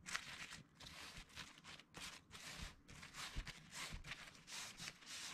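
Faint rustling of a black cloth rod bag as the sections of a four-piece carbon-fibre rod are slid out of it, in a string of short swishes.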